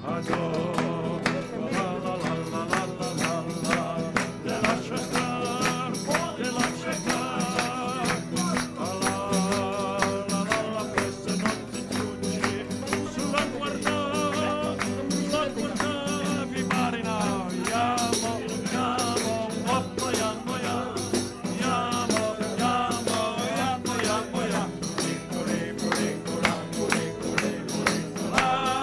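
Live acoustic guitar strummed in a steady rhythm while a man sings with a wavering, vibrato voice, and a tambourine jingles along.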